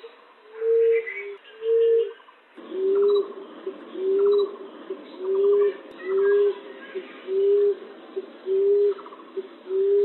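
Common emerald dove (punai tanah) giving its low, repeated coo, about one a second, each coo led by a short note. About two and a half seconds in, the background hiss rises and the coos drop slightly in pitch, as at a splice in a looped lure recording. Faint higher chirps of other birds run underneath.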